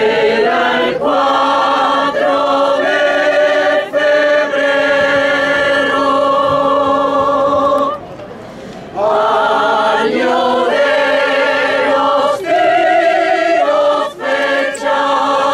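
A choir singing long held notes in two phrases, with a brief pause about eight seconds in.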